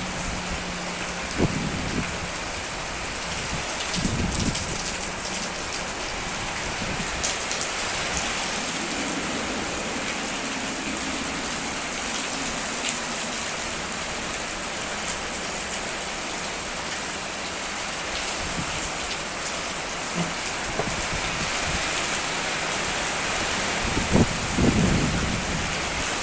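Heavy rain falling steadily in a strong wind, a constant hiss of rain, with a few short gusts buffeting the microphone near the start and again near the end.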